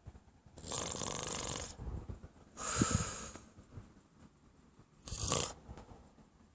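Snoring: three noisy, raspy breaths, each a second or less long, with quiet gaps of about two seconds between them.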